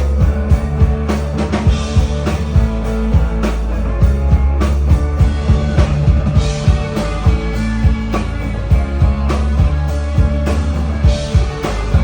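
Live rock band playing an instrumental passage with no singing: a drum kit keeps a steady beat over a strong, sustained bass line.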